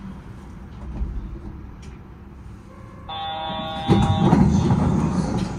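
Yurikamome train standing at the platform with a low steady hum. About three seconds in, a steady electronic warning tone sounds for under a second. It is followed by a much louder rush of noise, typical of the doors closing before departure.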